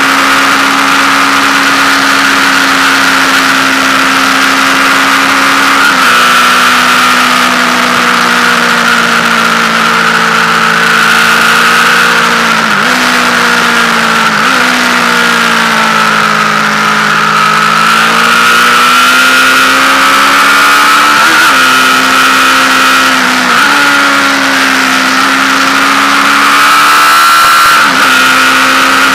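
Yamaha FZ8's inline-four engine running at high revs, heard from on the bike at speed with wind rush. Its pitch steps down and climbs back several times: a drop about six seconds in, a dip in the middle, and jumps up again later.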